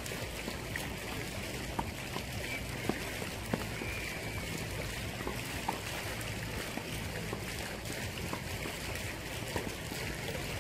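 Tennis rally on a clay court: several sharp pops of racket strikes on the ball at irregular intervals, over a steady rushing noise.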